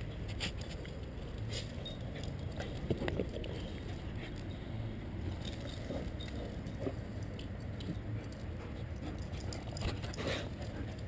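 Movement noise from a GoPro worn by a dog at play: rustling and scraping with scattered clicks over a steady low rumble.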